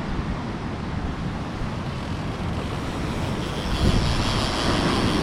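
Wind buffeting the microphone over the rush of surf, a steady low rumble that grows louder with a gust near the end.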